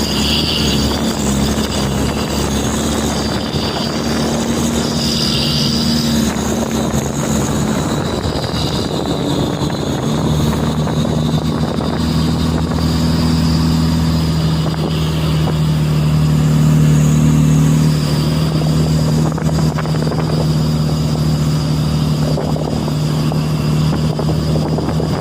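Truck engine running steadily, its pitch settling lower about ten seconds in.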